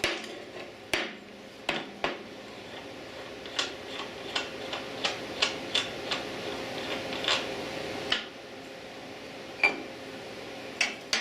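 Metal parts and hand tools clinking and tapping: about a dozen sharp, irregular clicks and knocks, closest together through the middle.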